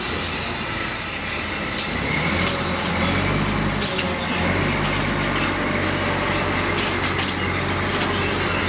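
Heavy diesel engine running and picking up about two to three seconds in, then holding steady, with a few short sharp knocks over it.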